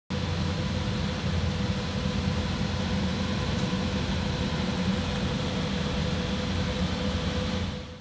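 Steady whir and hum of GPU mining rigs' cooling fans running, with a low drone and a faint steady whine. It fades out just before the end.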